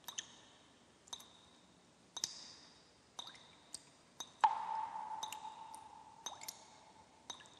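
Film-leader countdown sound effect: a sharp click with a short high ring about once a second. About halfway through, a held beep tone comes in suddenly and fades away over a couple of seconds.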